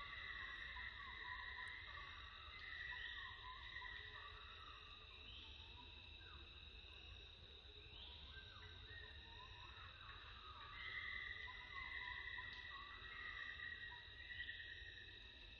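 Faint outdoor insect chorus: a steady high-pitched drone with a new rising phrase every two to three seconds, scattered short chirps, and a low rumble underneath.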